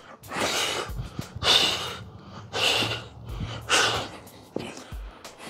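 A man breathing hard with effort during push-up pop-ups on kettlebells: four forceful exhalations about a second apart.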